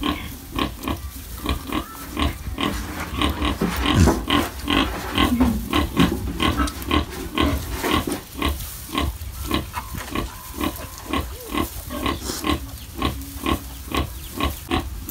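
A sow grunting in short, even grunts about three a second, the rhythmic grunting of a nursing sow while her newborn piglets suckle. About four seconds in there is a louder sliding sound.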